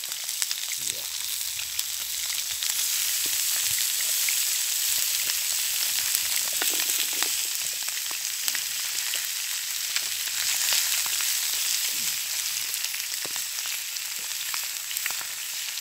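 Marinated chicken thighs sizzling in a wide shallow pan over a wood campfire: a steady high hiss with frequent small pops and spits.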